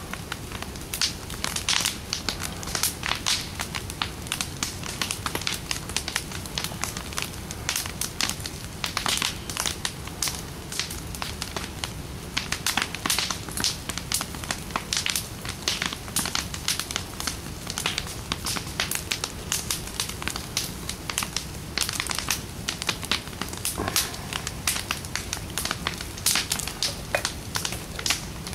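Large bonfire of stacked wooden planks burning, crackling with frequent sharp pops over a steady low rumble.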